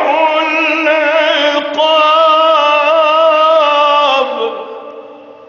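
A man's voice in melodic Quranic recitation (tajwid), holding one long ornamented note that wavers in pitch, then fades out about four seconds in.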